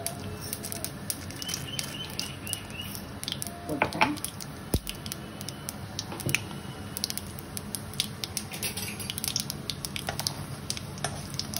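Hot oil sizzling and crackling in a kadai as mustard seeds and chana dal fry for a tempering, with scattered sharp pops that grow denser near the end. One sharp tap about five seconds in.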